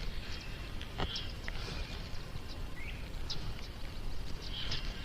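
Birds chirping here and there, with short chirps and a rising one near the middle, over a steady low outdoor rumble.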